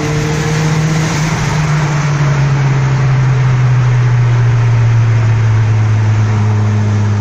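Car engine running steadily with road noise, its pitch sinking slowly as the car eases off.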